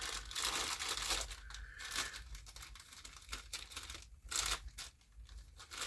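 Crinkling and rustling of a bag being rummaged through by hand, with scattered small clicks and crackles.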